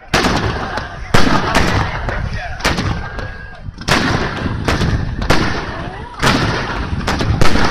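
Fireworks display: aerial shells bursting one after another, each a sharp bang with a rumbling echo, roughly eight or nine in quick succession.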